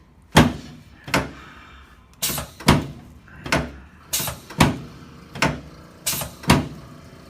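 Chiropractic adjusting table thudding again and again as its section drops under the chiropractor's thrusts during a sacroiliac joint adjustment. The sharp thuds come about one or two a second, some in quick pairs.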